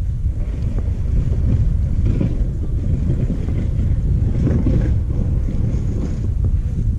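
Wind buffeting the camera microphone: a continuous low rumble.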